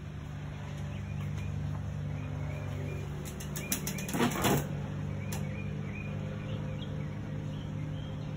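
Folding beach chair with a fabric seat creaking and rustling as a person sits down in it: a run of clicks, then a short rustle about four seconds in. A steady low hum runs underneath.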